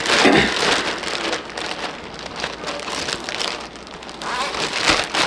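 Crinkly plastic rustling and crackling as cross-stitch materials are handled and packed away, loudest at the start and again near the end.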